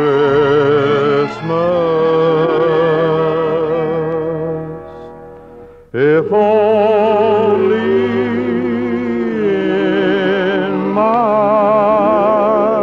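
Music made of long held notes with heavy vibrato; it fades down and then a new piece starts abruptly about six seconds in, again with held wavering notes.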